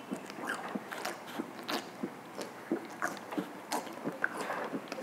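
A person chugging beer from a glass bottle: a string of irregular gulps and swallows.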